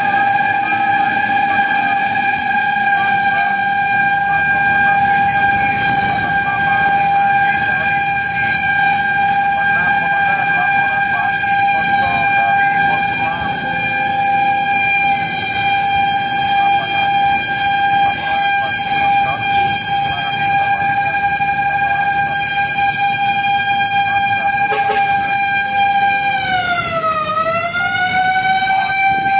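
A fire truck's siren holding one steady, unwavering tone, with the truck's engine and road noise underneath. Near the end the pitch dips briefly and climbs back.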